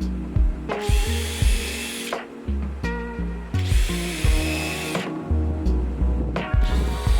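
Background music with a steady beat and a bass line, over which a power drill runs in short bursts of about a second and a half, its whine rising slightly in pitch as it spins up.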